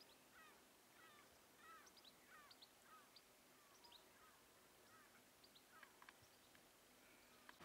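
Faint bird calls: a run of short, repeated chirps, about one or two a second, over a quiet background.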